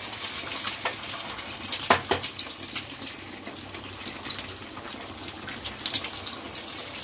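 Eggs sizzling and crackling in hot oil in a frying pan as they are cracked into it, with a sharp click about two seconds in.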